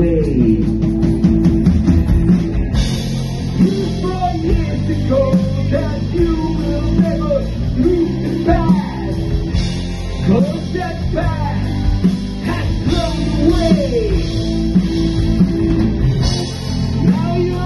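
A rock band playing live: electric guitars, bass guitar and a drum kit with cymbals, with a lead singer's voice over the band.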